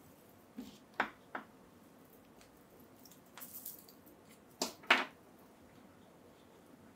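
Small plastic figure parts and accessories being handled: a few sharp clicks and taps, a brief rustle in the middle, and two louder clacks near the end.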